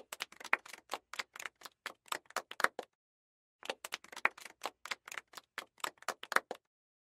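A rapid run of sharp, irregular clicks, typewriter-like, about five a second, breaking off for under a second midway and then running on again before stopping.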